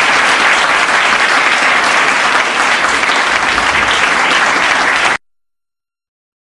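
Audience applauding steadily; the sound cuts off abruptly about five seconds in, leaving dead silence.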